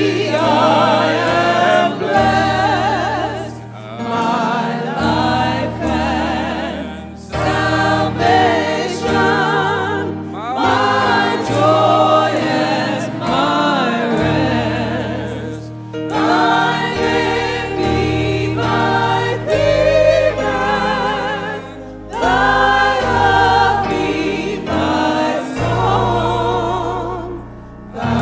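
A mixed choir of men and women singing a hymn verse together in harmony, with a keyboard holding low sustained notes beneath. The singing comes in phrases of a few seconds, each separated by a brief pause.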